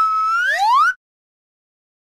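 Cartoon sound effect: a held, whistle-like tone that slides upward in pitch and cuts off after about a second.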